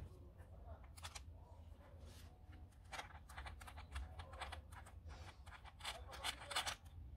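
Faint small metal clicks and scrapes as the chain-tensioner pin and plate on a Parkside electric chainsaw's bar mount are worked by hand, coming in a quick run of clicks through the second half.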